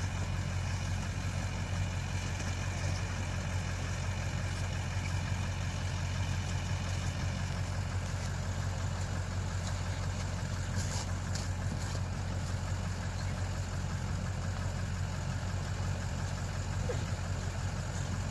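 A vehicle engine idling, a steady low hum that does not change.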